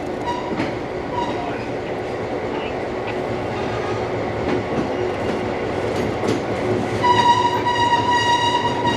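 EMD GP9 diesel locomotive and its train running along the track, the rumble and wheel clatter growing gradually louder. About seven seconds in, the locomotive's air horn starts a long, steady blast.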